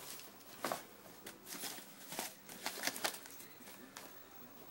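Faint handling noise: a scatter of soft rubs and light taps, about half a dozen in the first three seconds, over a quiet room.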